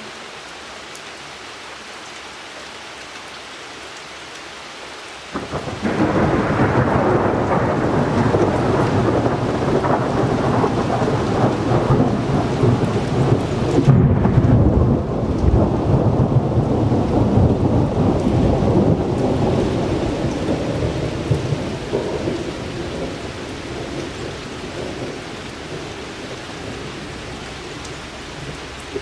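Steady rain, then a long roll of thunder that breaks in suddenly about five seconds in, swells, and slowly dies away over some twenty seconds.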